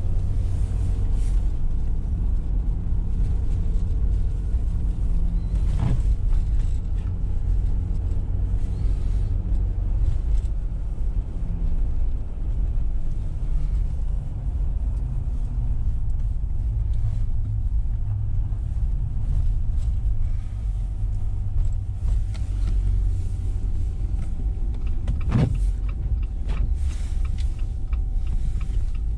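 A steady low rumble, with two sharp knocks, one about six seconds in and one near the end, and a faint steady tone entering in the last several seconds.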